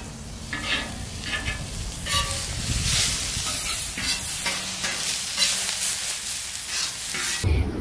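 Chopped onion, tomato and curry leaves sizzling in hot oil on a flat metal griddle, stirred and scraped with a metal spatula in repeated strokes as the masala is fried down to brown. The sizzling cuts off just before the end.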